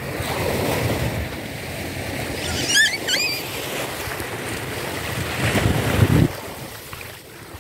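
Small waves breaking and washing up on a sandy shore, with wind buffeting the microphone; the rumble swells near the end and then drops off suddenly. A brief high-pitched squeal about three seconds in.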